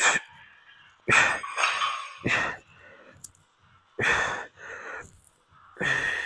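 A man breathing hard in a series of short, loud, uneven bursts while straining through reps of an overhead cable triceps extension.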